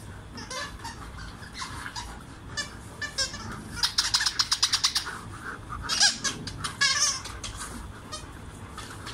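Squeaky dog toy squeaked in a quick run, about eight squeaks a second, as a dog bites down on it repeatedly, with a few more squeaks shortly after.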